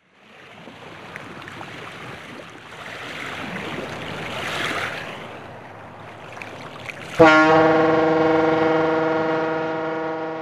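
Rushing wash of waves that swells and ebbs, then about seven seconds in a ship's horn sounds one long steady blast that fades away near the end.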